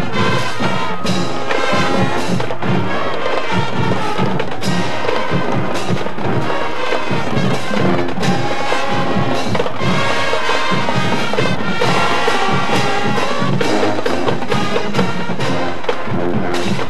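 High-school marching band playing loudly on the field: brass section carrying the tune over a driving drumline beat.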